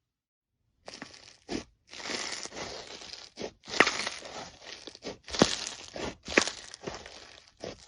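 Slime being squeezed and pressed by hand, crunching and crackling with a few sharp pops; it begins about a second in.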